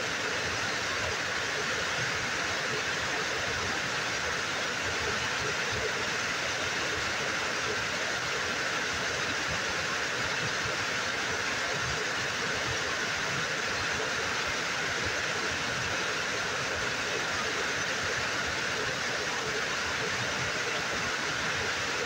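Small waterfall pouring over a rock ledge into a pool: a steady, unbroken rush of falling water.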